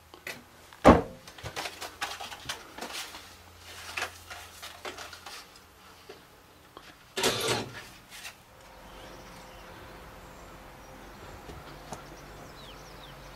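A door bangs shut about a second in, followed by scattered small knocks and handling noises. Just after seven seconds a punch time clock stamps a time card with a short, loud mechanical stamp.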